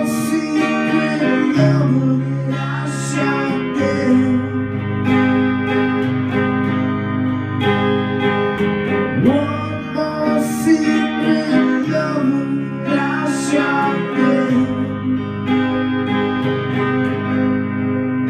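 Clean Stratocaster-style electric guitar playing sustained chords and melodic lines: an instrumental passage at the close of a song.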